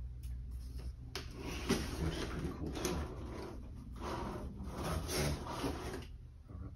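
Cardboard guitar box being opened by hand: flaps and packing rubbing and scraping, with a couple of sharp knocks in the first two seconds.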